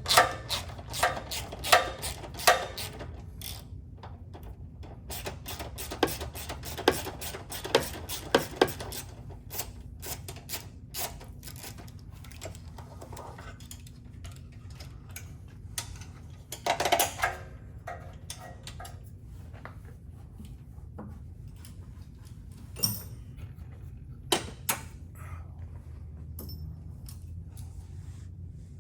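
Hand tools clicking and clinking on metal as the stock sway bar mounting block is unbolted. The clicks come thick and fast for the first several seconds, then sparser, with a short burst of clatter about seventeen seconds in and a few more near the end.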